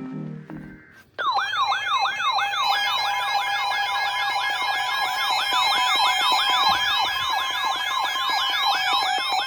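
Electronic emergency alert tones from weather alert devices: several overlapping fast siren-like wails over steady beeping tones, starting abruptly about a second in, announcing a National Weather Service warning.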